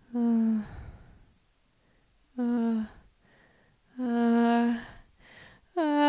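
A woman's voice giving drawn-out 'ah... ah...' cries: three held at a steady pitch about two seconds apart, then a fourth starting higher and rising near the end. This is the build-up to a big sneeze.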